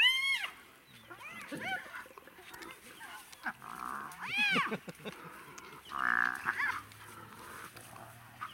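African wild dogs mobbing a spotted hyena at close quarters, with four bouts of high-pitched calls that rise and fall in pitch, each about half a second long.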